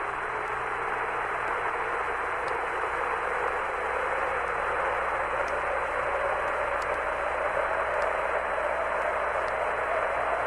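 Steady hiss of the Apollo air-to-ground radio link between transmissions, thin like a voice channel, with a faint tone slowly rising in pitch underneath.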